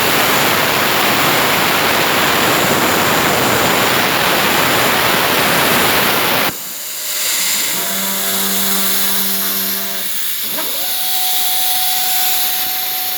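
Air plasma cutter cutting through steel plate: a loud, steady hiss that cuts off abruptly about six and a half seconds in. After it come quieter hums, and near the end a motor whines up in pitch and holds steady.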